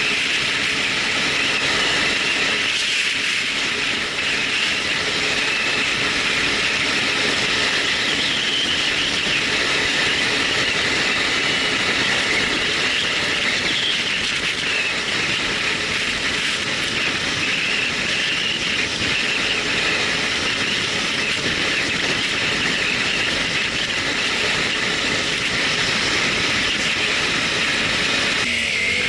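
Loud, steady rushing hiss recorded through a Sony HDR-AZ1 action camera's built-in microphone, the terrible noise the owner hears in its recordings, which he is unsure is a factory defect or just how the model records.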